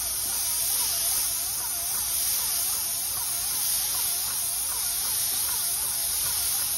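Airless paint spray gun hissing steadily as it sprays paint onto a stucco wall. A fainter tone sweeps up and down about twice a second under the hiss.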